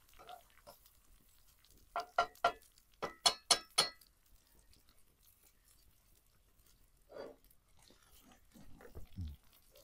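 Metal spatula tapping against a frying pan: three quick taps about two seconds in, then three more a second later, each with a short metallic ring.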